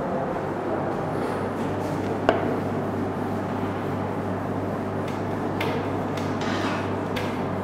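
Cloth rubbing across a whiteboard as it is wiped clean, with a few short rubbing strokes near the end, over a steady low hum. One sharp click a little over two seconds in.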